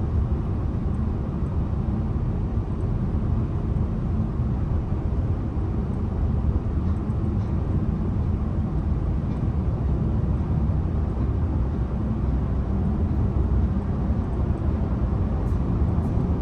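Steady low road and engine rumble of a 2011 Renault Samsung SM3 sedan driving along at an even pace.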